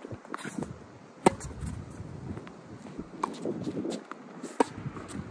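Tennis ball struck by rackets during a rally: three sharp hits over a few seconds, the first the loudest, with fainter clicks of bounces and footsteps between.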